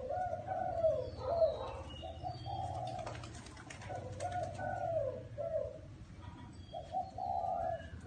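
Spotted dove cooing: several repeated low coo phrases, one after another.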